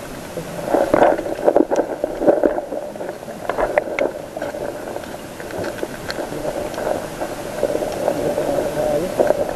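Muffled underwater water noise heard through a camera housing, with irregular clicks and crackles, busiest in the first few seconds.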